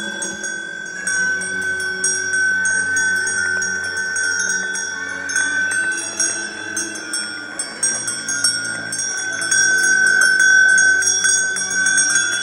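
Cowbells on a small herd of walking cattle, clanking irregularly with many overlapping ringing strikes.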